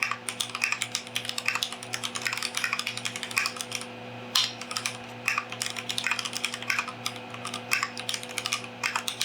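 Fast typing on a Keychron Q5 mechanical keyboard fitted with Akko Jelly Black switches: a quick, uneven run of key clacks, as in a typing test, with a brief pause about four seconds in.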